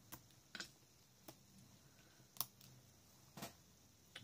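A few faint, sharp clicks and taps, the sharpest about two and a half seconds in: small self-adhesive rhinestones being picked off their sheet with a pen-style pick-up tool and pressed onto a paper layout.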